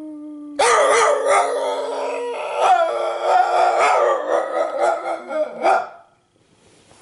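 Pet dog howling: one long, wavering, rough howl starts about half a second in and stops about six seconds in, over a steadier, lower held howl during the first two seconds.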